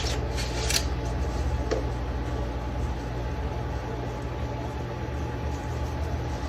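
Steady low mechanical hum, like a running fan or kitchen appliance, with a few light clicks or taps in the first second.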